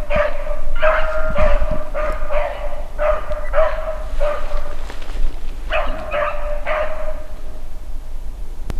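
Beagle puppy baying in a run of short, ringing barks, about two a second, on a rabbit's trail. The barks pause about five seconds in, come again three times, then stop near the end.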